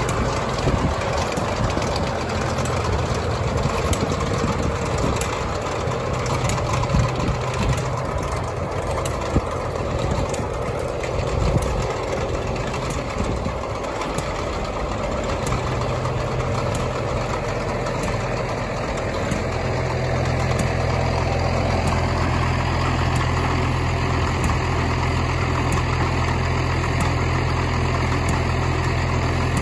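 Tractor engine idling steadily, a low even hum that settles and steadies about two-thirds of the way through.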